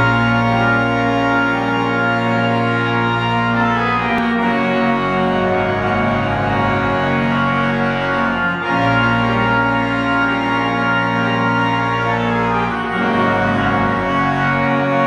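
1927 Robert Morton theatre organ, now a digital replica of its pipe ranks, playing full sustained chords that move to a new chord about every four seconds.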